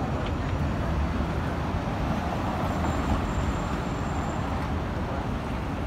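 Steady road traffic noise of cars and taxis passing on a busy city street. A faint high-pitched tone sounds for about a second and a half near the middle.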